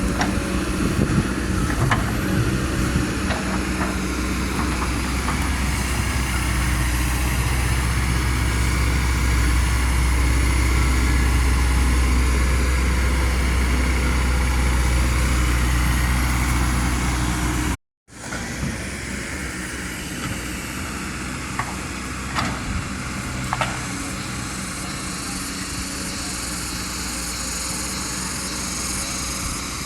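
Diesel engine of a Kobelco SK200 hydraulic excavator running steadily and working harder over the first half. The sound breaks off for an instant a little past halfway, then goes on quieter, with a few sharp knocks.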